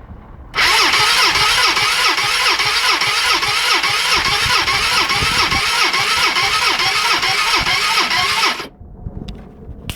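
Gilera DNA 125 scooter's electric starter cranking the engine for about eight seconds, the pitch rising and falling about three times a second as it turns over, then cutting off suddenly. The engine never fires: a no-start despite a new spark plug, good compression and a fully charged battery.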